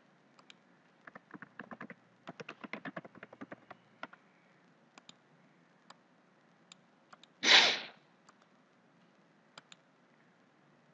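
Typing on a computer keyboard: a quick run of key clicks for about three seconds, followed by scattered single mouse clicks. About seven and a half seconds in there is a brief, loud rush of noise.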